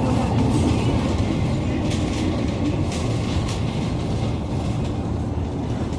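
Inside a Scania GN16 articulated city bus on the move: steady engine and road noise, with a few short rattles from the cabin fittings.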